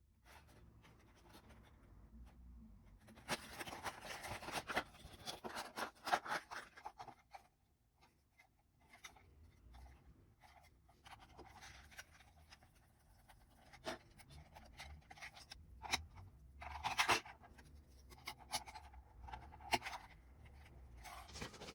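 Faint intermittent scratching, rustling and small clicks from the bus-shaped alarm clock being handled, in two spells: one a few seconds in and a longer one in the second half, with near quiet between.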